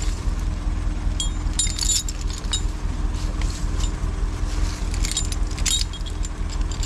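Steel choker chains clinking and rattling against each other and the winch cable as they are hooked around beech logs, in several clusters of clinks. Under them, a steady low rumble from the LKT 81 Turbo skidder's diesel engine idling.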